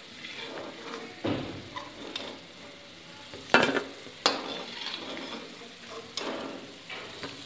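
Mixed lentil vadas sizzling in hot oil in a pan, with a metal spoon knocking and scraping against the pan several times as the fried vadas are lifted out.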